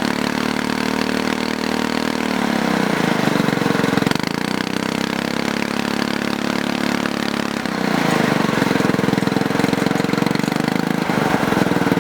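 Predator 212cc single-cylinder four-stroke go-kart engine with a J-pipe race header and screw-on muffler, running under throttle; its revs dip and pick up again a couple of times and it gets louder about two-thirds of the way through.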